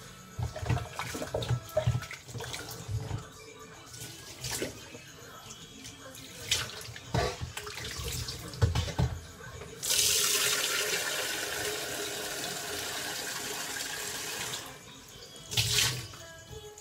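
Dishwashing at a kitchen sink: scattered knocks and clatter of dishes and containers being handled, then a tap running steadily for about five seconds from about ten seconds in, then more clatter near the end.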